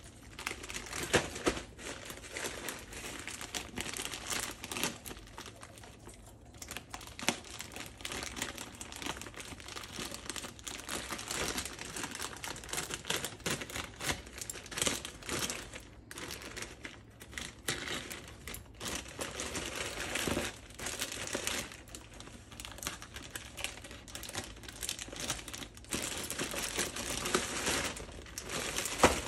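Plastic poly mailer bag crinkling and rustling as it is cut open with scissors and handled, with many small clicks and snips. Near the end comes the crackle of a plastic-wrapped box being pulled out of the bag.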